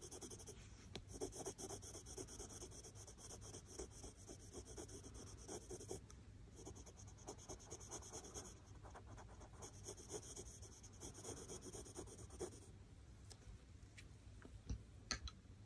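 Faint scratching of a Prismacolor colored pencil on cartridge paper in rapid shading strokes. The strokes stop about 12 seconds in, followed by a few light clicks near the end.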